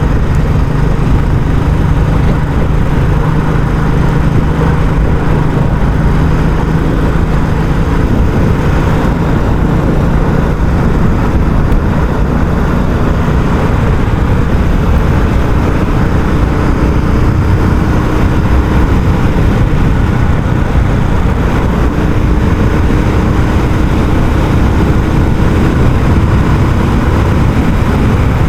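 Royal Enfield Classic 350's single-cylinder engine running through its stock exhaust while riding, steady and loud. About halfway through, a fainter tone rises slowly in pitch.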